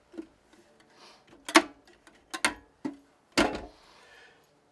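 Drawers of a small steel mini toolbox sliding open and shut, with several sharp metal clacks as they close, the loudest about a second and a half in and another near three and a half seconds.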